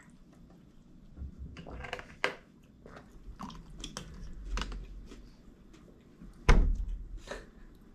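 Eating and handling noises at a table: soft chewing and crunching with scattered small clicks and taps from handling cups and a plastic bottle, and one louder knock about six and a half seconds in.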